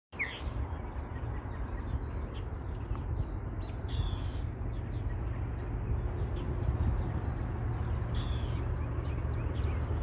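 A crow cawing, two short calls about four seconds apart, over a steady low rumble that slowly grows louder.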